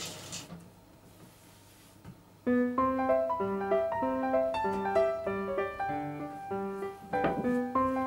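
Piano music begins about two and a half seconds in, after a brief rattle of chopped nuts poured into a steel pot that fades within the first half second. A single knock comes near the end.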